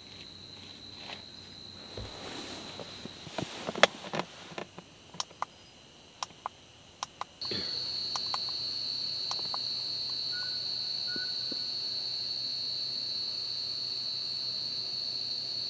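Night insects calling in a steady, high, continuous trill. A few seconds in comes a run of sharp clicks and knocks, and about halfway the trill comes in louder and a little higher and holds steady.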